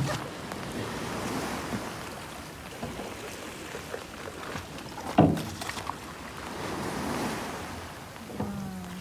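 Waves washing in over a flooded boat ramp at very high water, swelling twice, with one sharp knock about five seconds in.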